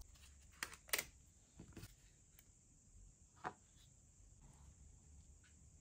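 Light metal clicks of binder clips being unclipped from a silicone candle mould and set down: a couple about a second in, two more near two seconds and a last one about three and a half seconds in, with faint handling between.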